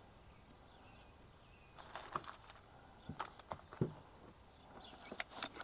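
Tools and small parts clicking and knocking against each other and against a plastic tool tray as a hand rummages through it looking for a file, in three short bursts of clatter about two, three and a half, and five seconds in.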